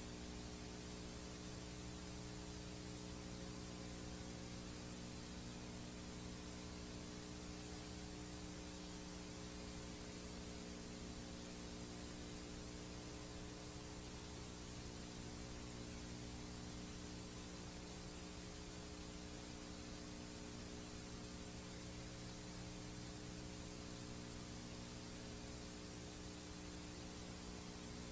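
VHS tape playback noise: a steady hiss with a low mains hum under it, unchanging throughout.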